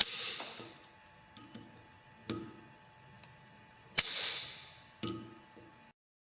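Preset torque wrench tightening cutterhead blade screws on a helical planer cutterhead. Two sharp clicks about four seconds apart, each followed by a short fading rasp, with softer knocks between: the wrench breaking over as each screw reaches its 6 Nm setting.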